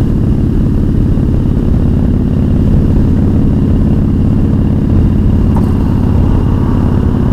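Kawasaki cruiser motorcycle's engine running steadily at road speed, heard from the rider's seat.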